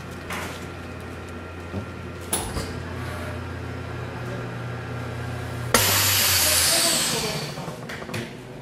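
Chamber vacuum sealer running a cycle on a bagged beef rib: the lid knocks shut about two seconds in and the pump runs with a steady low hum. About six seconds in a sudden loud hiss of air rushes back into the chamber as it vents after sealing, then fades.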